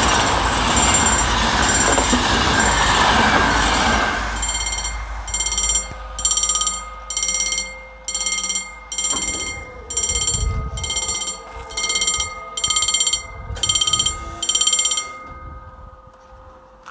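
Intercity passenger carriages passing at speed, with a loud rush of wheels on rail, over the level crossing's mechanical warning bell. Once the train clears, about 4 seconds in, the bell rings on alone in regular bursts, about three every two seconds, then stops suddenly about 15 seconds in.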